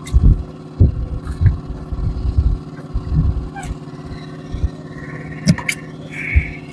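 A small engine hums steadily, with irregular low thumps and a few sharp clicks from a squid hand line and catch being handled in a wooden boat.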